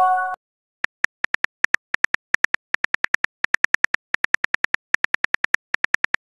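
A short chime of a few tones as a text message arrives, then a long run of quick keyboard clicks, about five a second, as a reply is typed in a texting app.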